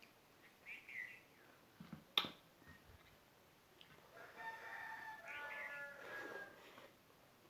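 A rooster crowing in the background, one long call starting about four seconds in and lasting some two and a half seconds. A sharp click a little after two seconds in, and a short high chirp near the first second.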